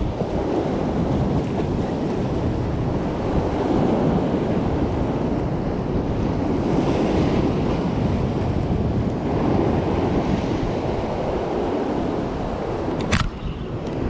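Ocean swell surging and washing over a rock ledge just below, in slow swells, with wind buffeting the microphone. One sharp click about a second before the end.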